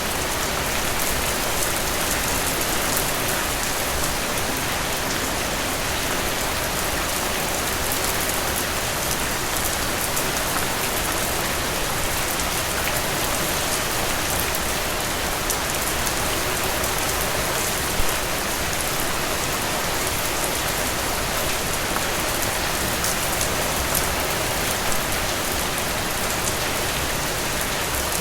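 Heavy rain falling steadily, a dense even hiss speckled with fine drop ticks, with a couple of brief louder drips in the later part.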